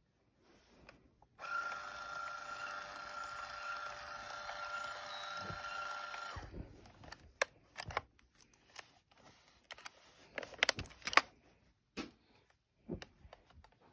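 Brother P-touch label maker printing a label: its tape-feed motor whirs with a steady high whine for about five seconds, then stops. Several sharp clicks and knocks follow.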